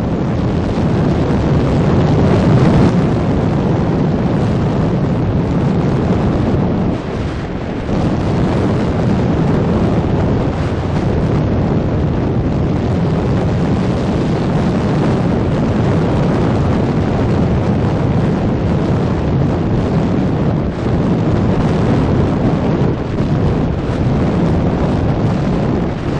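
Steady noise of an excursion boat under way: engine drone mixed with wind buffeting the microphone and water rushing past the hull.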